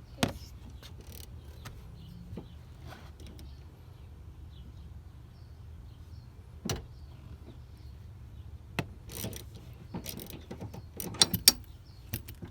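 Scattered metallic clicks and knocks of a socket ratchet and seat hardware as a truck's front seat is unbolted and worked loose, with a cluster of sharper knocks near the end. A low steady hum runs underneath.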